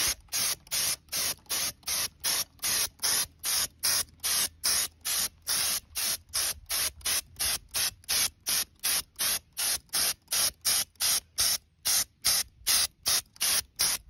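Compressed-air spray gun with a bottle cup hissing as it sprays white gloss glaze, in short even bursts about three a second.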